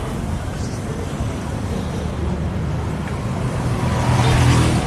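Town street traffic: a steady engine rumble that grows louder about four seconds in as a motor vehicle passes close by.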